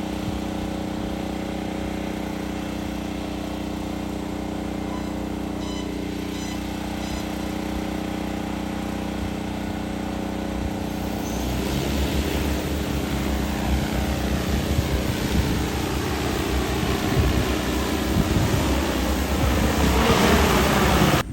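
DJI Agras T30 crop-spraying drone's rotors humming steadily with several tones at once, growing louder and rougher from about halfway through and loudest just before the sound cuts off suddenly.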